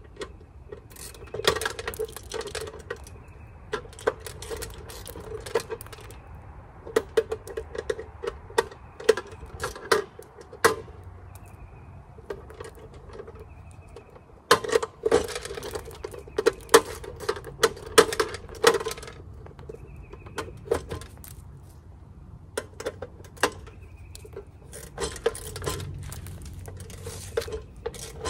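A wrench working on the bolts under a deer feeder's motor box: irregular clusters of sharp metallic clicks and clinks.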